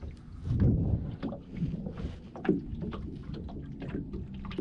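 Small waves lapping and slapping against the hull of a small boat: irregular splashy knocks over a steady low rumble.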